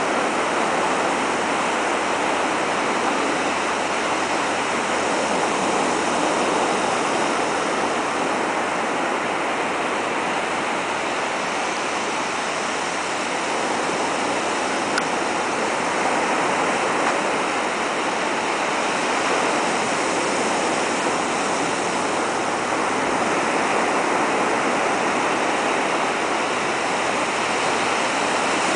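Ocean surf breaking and washing up the shallows in a steady rush.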